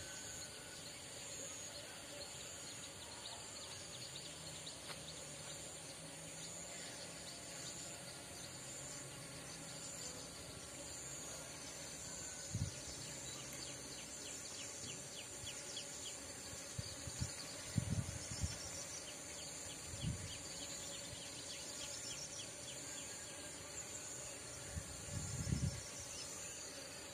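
Steady high-pitched chirring of insects in a maize field, with a run of fine rapid ticking in the middle and a few soft low thumps.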